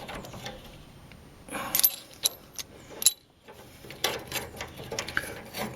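Irregular metallic clicks and clinks of small brake parts and hardware being handled and fitted back into a lawn tractor's brake assembly.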